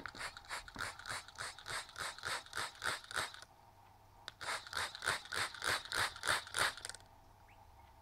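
A quail dust-bathing in carpet: its body and wings shuffle rapidly against the pile, making rhythmic scratching at about six strokes a second in two bouts with a short pause between.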